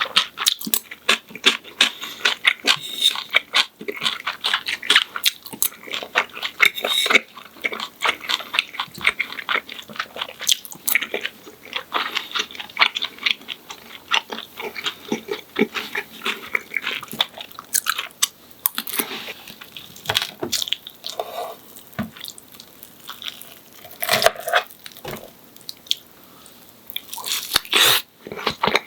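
Close-miked eating of a fried breaded pork cutlet: crisp crunching and chewing of the crust, many quick crackles, with brief pauses between mouthfuls.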